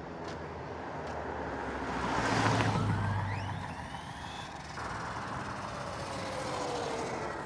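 ARRMA Mojave 4S RC truck's brushless motor whining as the truck makes a fast pass, loudest about two and a half seconds in, with the pitch falling as it moves away. A fainter whine glides steadily down in the second half.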